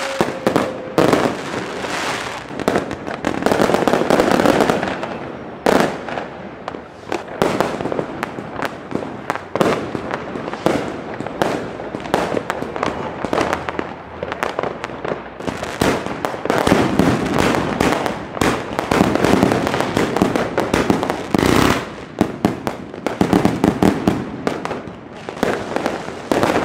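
Fireworks and firecrackers going off continuously: a dense, unbroken run of bangs and crackles, with a few louder single blasts standing out, one about six seconds in and another about three quarters of the way through.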